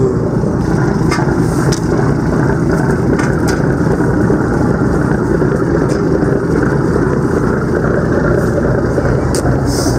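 Boat engine running steadily under way, a loud, even rumble with no break.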